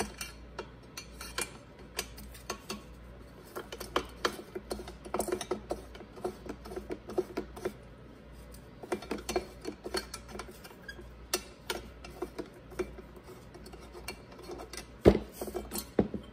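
Irregular small metallic clicks and ticks as a hand driver loosens and backs out the muffler bolts on a two-stroke blower engine, with one louder knock near the end as the muffler comes free.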